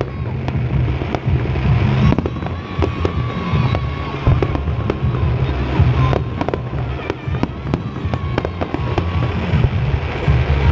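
Fireworks display going off: many sharp bangs and crackles in quick, irregular succession over a continuous low rumble.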